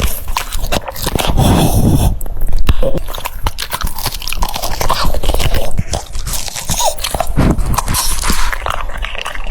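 French bulldog biting and chewing crunchy food, a dense run of quick, crisp crunches and wet mouth sounds, loud and close.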